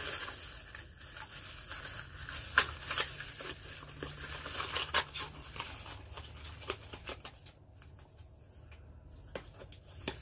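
Packaging rustling and crinkling as an item is unwrapped by hand. The noise is busy for the first several seconds, then thins out to a few light clicks and rustles.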